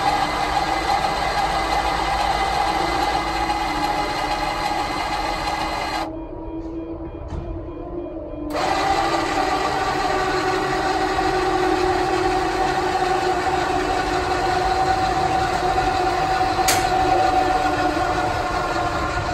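Electric motors of Autolift motorhome stabilizer legs running with a steady whine as the legs retract and fold up. The sound drops away for about two seconds partway through, then resumes with its pitch sinking slightly, and there is a single click near the end.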